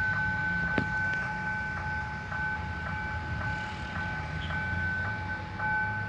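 Railway level-crossing warning bell ringing steadily, a ringing tone with a rapid beat of about three strokes a second, over a low rumble of traffic. The crossing signal is going with no train arriving.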